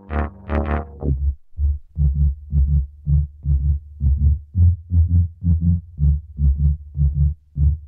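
Novation Circuit Tracks synth playing a deep, pulsing sequenced bass line, short notes at about four a second. A brighter synth part dies away about a second in.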